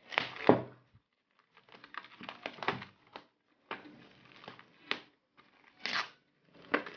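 Hands digging into, squeezing and pulling off handfuls of raw köfte mixture of minced chicken and beef with breadcrumbs in a glass bowl. The noises come in irregular short bursts with brief pauses and a few sharper clicks.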